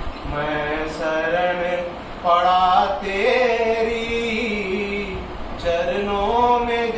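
A man singing a Hindi devotional bhajan to the Gurudev without accompaniment, in long drawn-out notes that waver and glide between pitches.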